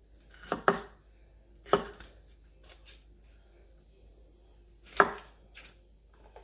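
Chef's knife slicing a bell pepper and knocking on a cutting mat over a wooden board: a handful of separate sharp chops, two close together near the start and the loudest about five seconds in.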